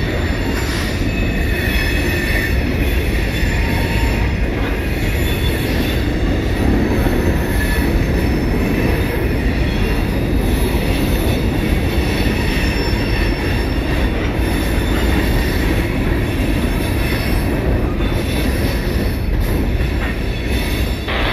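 Transfer freight train rolling past: a steady rumble of steel wheels on rail, with a faint high-pitched squeal of the wheels.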